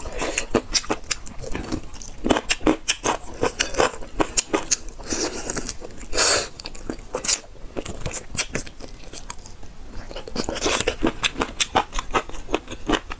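Close-miked biting and chewing of braised Sichuan-pepper chicken feet: a quick run of small crunchy clicks as skin and cartilage are bitten and chewed.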